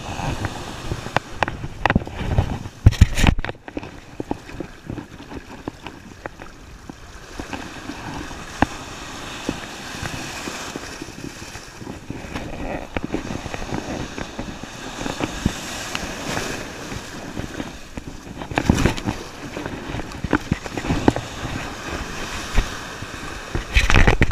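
Shallow ocean surf washing and foaming around the legs, with wind buffeting the microphone. A few louder surges of water and wind stand out, the biggest about three seconds in and again near the end.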